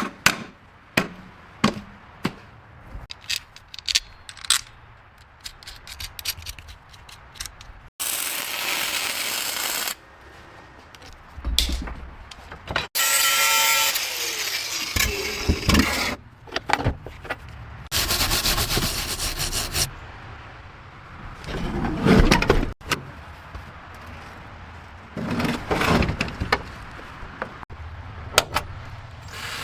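Hand and power tools working on an old car: repeated clicks and knocks and scraping, broken by several steady power-tool bursts of about two seconds each.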